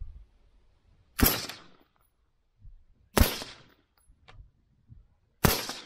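Three suppressed .223 rifle shots from an AR-15-style carbine with an 11.5-inch barrel and a short suppressor, about two seconds apart. Each is a sudden report that dies away within half a second.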